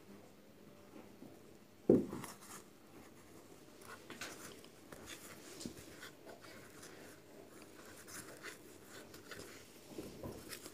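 Faint rustling and small clicks of crochet work: a crochet hook and yarn being drawn through the stitches of a crocheted baby shoe. A single sharp knock about two seconds in.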